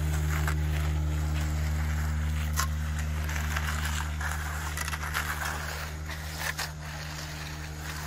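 Battery-powered MBW Screed Demon power screed running, its vibrating screed board striking off wet concrete with a steady, quiet low hum. A few light scrapes and clicks of concrete rakes working the mix sound over it.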